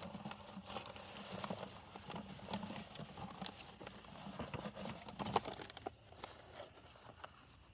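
Irregular crackles and snaps from a small campfire of damp wood and paper being started. They thin out near the end.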